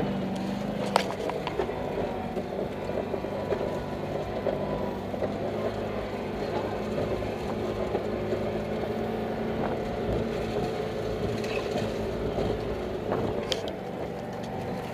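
Car engine running steadily, heard from inside the cabin as it drives along a rough dirt track, with a few sharp knocks and rattles from the bumpy ride.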